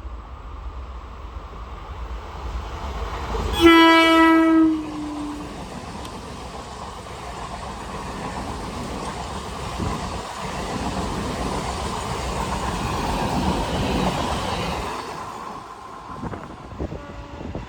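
Indian train's horn giving one blast about four seconds in, its pitch sagging as it trails off, over the rumble of the train running past with wheels clattering over the rail joints. The running noise fades away near the end.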